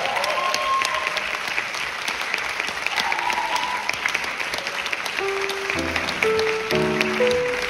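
An audience applauding, dense and steady, with a couple of brief calls from the crowd. About five seconds in, music starts over the clapping with sustained, evenly held notes.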